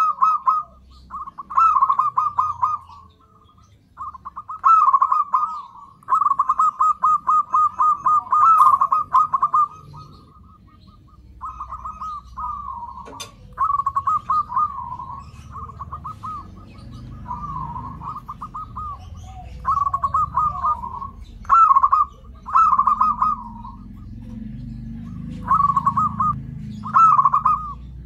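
Zebra dove (perkutut) song: phrases of rapid, rolling coos repeated every second or two, loud at the start and end, with softer phrases in the middle. One sharp click about 13 seconds in.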